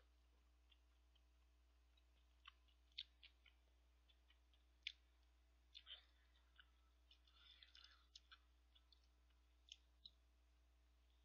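Faint, scattered clicks and scrapes of a metal spoon in a paper cup of instant ramen with rice, with quiet eating sounds in between.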